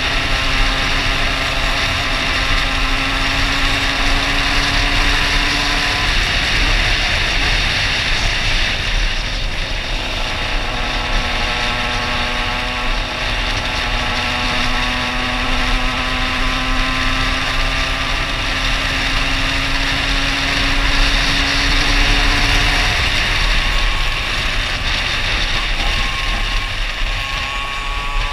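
Two-stroke Minarelli AM6 moped engine fitted with an 88 cc Top aluminium cylinder kit, pulling hard under acceleration: its pitch climbs slowly until about six seconds in, drops back, then climbs again for a long pull until near the end, with a loud rush of wind.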